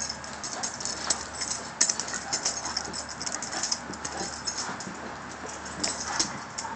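A Saint Bernard and a Doberman moving about close by, making an irregular run of light clicks and rustles.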